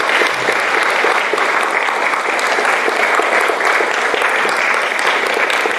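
Audience applauding steadily in a room, a dense, even clapping that begins just before and fades soon after.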